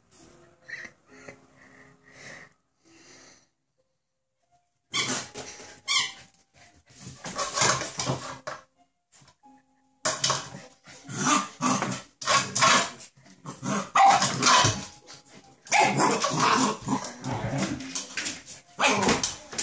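Samoyed puppy barking at its water bowl in repeated loud bursts, starting about five seconds in after a few faint sounds and a short quiet gap.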